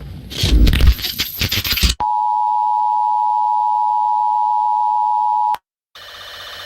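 Electronic alert tone of a broadcast emergency warning: a steady, loud pair of close pitches near 1 kHz, held for about three and a half seconds and cut off abruptly. It comes after about two seconds of noisy crackle. After a brief dead silence, a low hum swells near the end.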